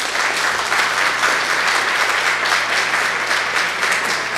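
Audience applause, many people clapping steadily after a talk ends.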